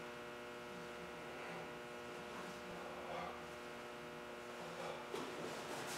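Steady electrical mains hum, with a few faint soft sounds and a slightly louder one about five seconds in.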